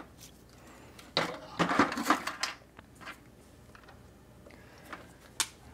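Clatter of a cordless drill and small metal parts being handled on a cluttered tabletop, a burst of knocks and clinks in the first half and one sharp click near the end.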